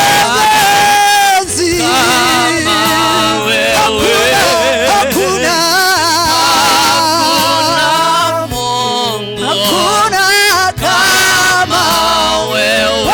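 Gospel music: a singing voice with wavering, ornamented pitch over a steady bass line and accompaniment.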